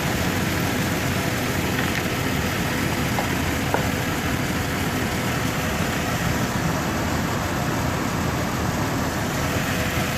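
Jeep Wrangler 4.0 L straight-six idling steadily with a cylinder 1 misfire. The number 1 injector is commanded on all the time by a faulty driver in the PCM, so the engine runs rich.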